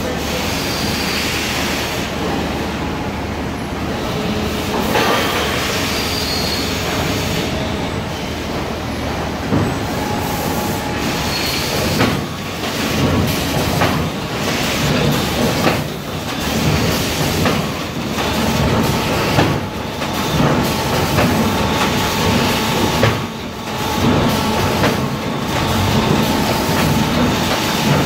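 Verbruggen VPM-14 gantry palletizer at work: continuous machinery noise with faint steady whines, broken by irregular knocks and clatter as the gripper places bags into boxes.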